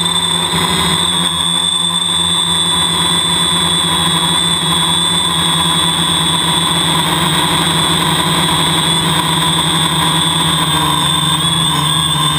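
Homebuilt drone's motors and propellers whining steadily in flight, heard up close from the camera on board, with several steady tones over a rushing hiss. The pitch wavers slightly near the end.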